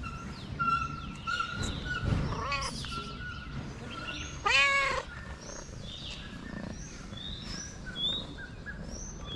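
Tabby cat meowing: a shorter meow about two and a half seconds in, then one loud meow about halfway through that rises and falls in pitch.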